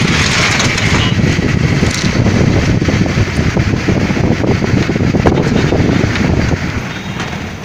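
Car driving along, heard from inside: a steady rumble of road and engine noise, with wind buffeting the microphone, easing off a little near the end.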